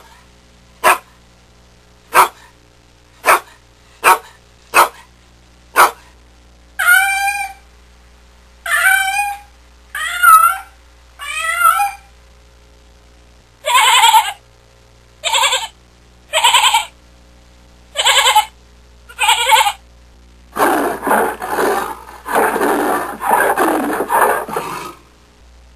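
A sequence of recorded animal calls: about seven short, sharp calls, then four drawn-out calls that rise and fall in pitch, then six short calls, then a long rough call lasting about five seconds near the end.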